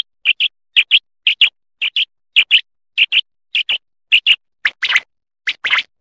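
Common quail calling: a short, high two-note chirp repeated about twice a second, the notes growing fuller and louder near the end.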